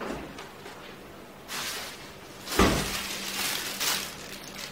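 A sharp thump about two and a half seconds in, then a plastic bag of fresh mint leaves rustling and crinkling as it is handled.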